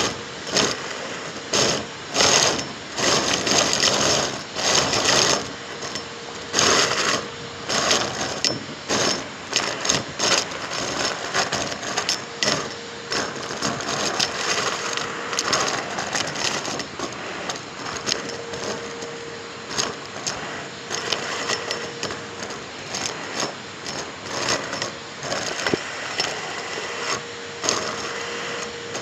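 Numatic James vacuum cleaner running close to the microphone, with irregular crackling and rattling throughout. A faint steady tone joins about five seconds in and comes and goes.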